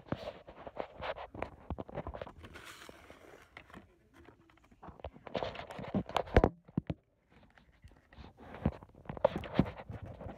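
Handling noise from a phone being picked up and moved about: irregular scrapes, rubbing and knocks on its microphone, with a short quieter spell a little past the middle.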